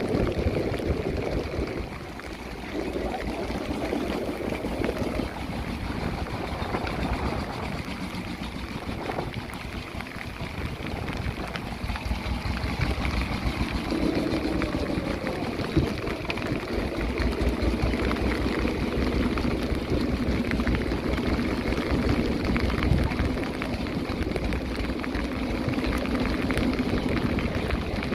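Fishing boat at sea: its engine running with a steady low hum, mixed with the wash of water and rain.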